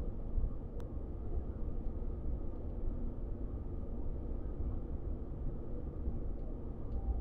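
Steady low rumble of a truck's engine and tyres heard from inside the cab while driving, with a faint click about a second in.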